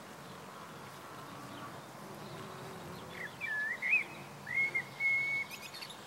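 Bumblebee buzzing low and steady at chive flowers. About three seconds in, a bird calls: a few short whistled notes, then a longer held whistle. The bird's whistles are the loudest sound.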